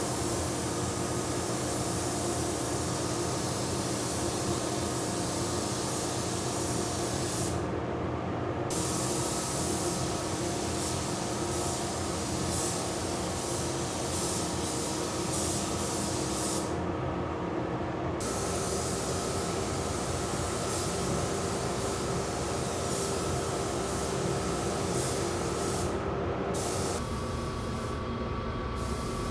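Paint spray gun hissing steadily as paint is sprayed, with the hiss stopping briefly four times as the trigger is let off, over a steady machine hum.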